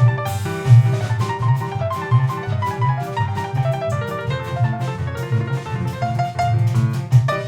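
Jazz piano trio playing: piano runs over a walking double bass, with drum kit and cymbal strokes keeping time.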